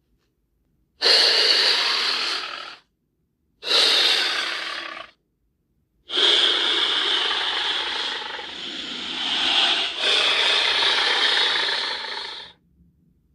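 Monsterverse Titanosaurus creature sound effects: two short roars a second or two long, then a long roar lasting about six seconds that swells and dips midway. The calls are rough and noisy, with no clear pitch.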